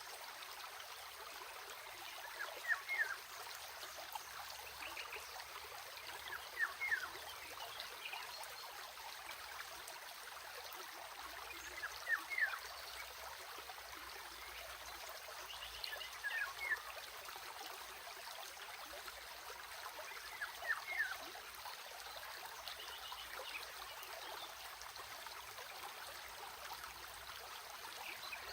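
Stream running with a steady trickling hiss. Short chirping calls of a few quick strokes each, from a bird or frog, cut through it about every four seconds.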